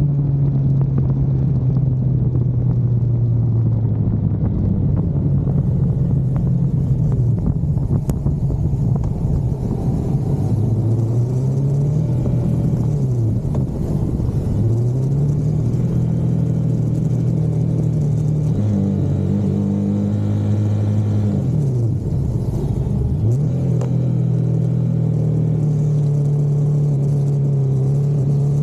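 Car engine on a lap of a road-racing circuit, held at speed and then repeatedly dropping and climbing in pitch as the car brakes and accelerates through corners.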